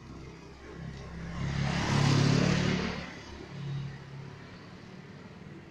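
A motor vehicle passing by on the road: its engine and tyre noise grows louder, peaks about two seconds in and fades away, with a second, fainter pass shortly after.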